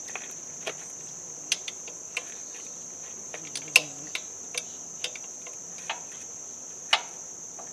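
Crickets chirring steadily and high-pitched. Over this come a dozen or so irregular sharp clicks and taps of a hand wrench working a bolt tight.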